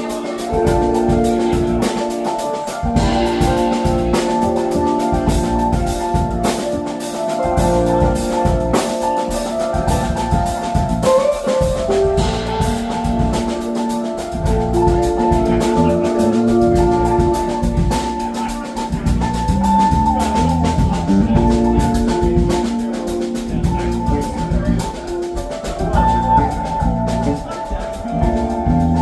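Instrumental band music with no vocals: a drum kit keeps a steady beat under sustained chords.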